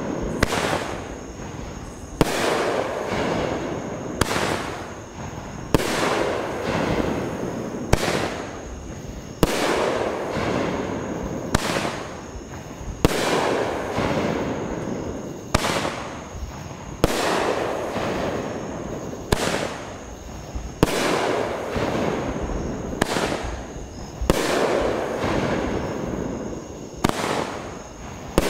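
A consumer firework cake firing single aerial dahlia shells one after another. There are sharp reports every second or two, each followed by a fading wash of noise.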